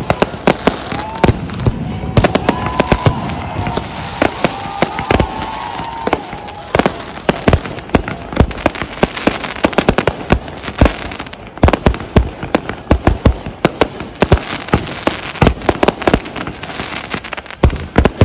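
Aerial fireworks exploding overhead: a dense, irregular run of sharp bangs, dozens of them, going on without a break.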